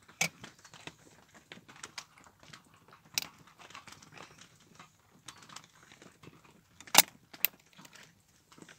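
Metallic clicks and clinks of a Smith & Wesson 460 Magnum revolver being loaded by hand, cartridges handled and fed into its open cylinder. A few sharp clicks stand out, the loudest two about seven seconds in, half a second apart.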